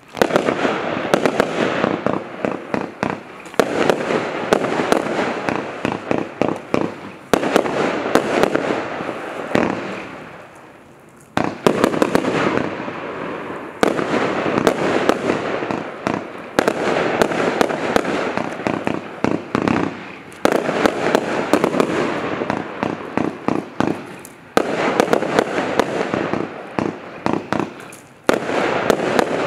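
Celtic Fireworks 'Stallion' fanned multi-shot firework cake firing: rapid volleys of shots and bursting pops in waves that start suddenly every three to four seconds, with a short lull about ten seconds in.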